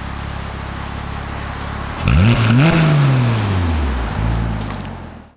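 2007 Porsche Cayman S flat-six through an AWE Tuning stainless catback exhaust, running steadily at first. About two seconds in it gets suddenly louder as the engine accelerates, its pitch climbing quickly. The note then falls away and fades, cutting off just before the end.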